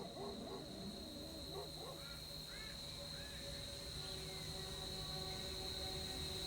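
Night insects, crickets, chirping in a steady high trill. Brief wavering calls come over it in the first couple of seconds, and a few short chirps follow. About four seconds in, a low steady hum joins.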